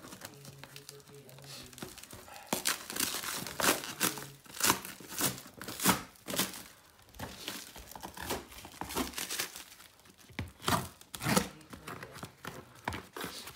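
Sealed packaging being cut and torn open with a knife: crinkling and tearing of the wrapping in short, irregular strokes, starting about two seconds in.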